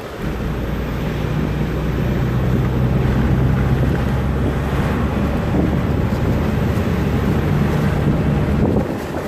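Car driving along a road, heard from inside the cabin: a steady engine hum with road and wind noise, dipping briefly near the end.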